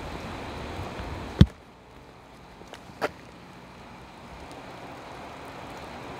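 A loud sharp knock about a second and a half in and a softer click about three seconds in, over a low steady rumble that turns quieter after the first knock.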